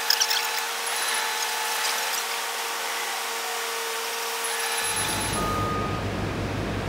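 Steady machinery hum from construction equipment, with a few sharp metallic clicks at the start. About five seconds in it changes abruptly to a lower engine rumble.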